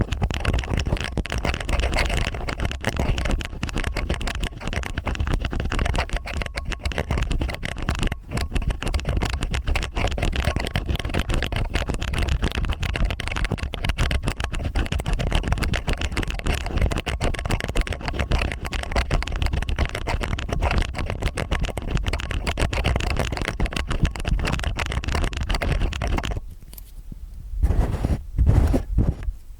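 Stainless steel ear picks scraping and scratching in both ears at once: a dense, crackly scratching full of small clicks. It stops about 26 seconds in, and a few louder bumps follow near the end.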